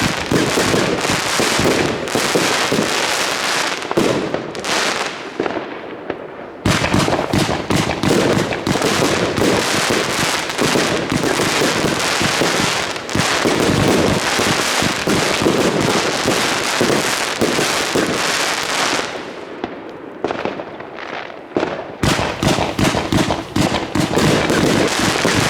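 Fireworks going off in a dense, rapid string of cracks and bangs, dying away twice and starting up again abruptly each time.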